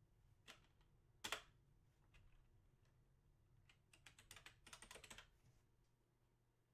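Faint typing on a computer keyboard: a few separate keystrokes, the loudest about a second in, then a quick run of keystrokes about four seconds in.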